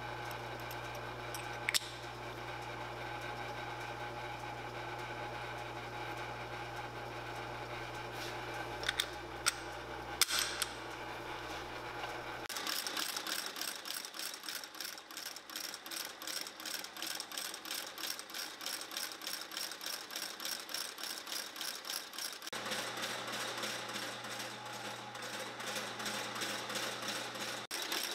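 Steady motor hum with a few sharp clicks, then, from about twelve seconds in, an industrial outsole stitching machine running with a fast, even, rhythmic clatter as it stitches a new leather sole onto a boot.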